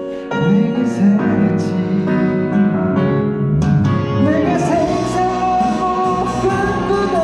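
Slow love song with plucked-string and keyboard accompaniment and singing, a wavering sung or played melody line rising above the accompaniment about four seconds in.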